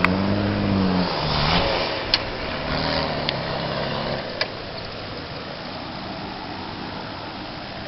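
Off-road 4x4 engine revving, its pitch rising and falling over the first four seconds, with a few sharp knocks, then settling into a steadier, quieter rumble.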